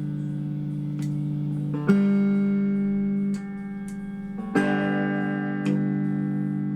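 Hofner 459 VTZ electric guitar playing chords, with new chords struck about two and four and a half seconds in and each left to ring. It is being tested through its just-repaired treble boost circuit, which had been cutting out all sound and now passes it.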